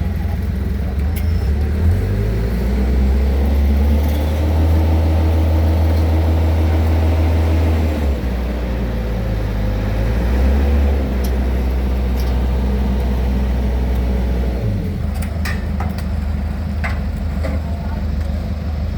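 Heavy road-construction machine's diesel engine running under load. Its revs rise about two seconds in, dip briefly, then drop back down about fifteen seconds in. A few light knocks sound near the end.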